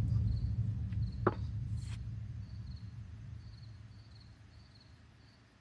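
A low, deep drone fades out steadily to near silence. Faint cricket chirps repeat about twice a second throughout, and there are two soft clicks in the first two seconds.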